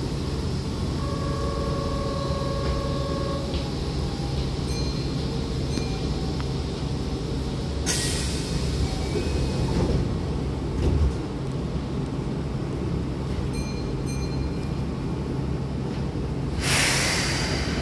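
Keihan electric train's sliding passenger doors closing at an underground station, under a steady low train hum. A held chime-like tone sounds in the first few seconds, a sharp hiss of air comes about eight seconds in, a low bump follows around eleven seconds, and another air hiss comes near the end.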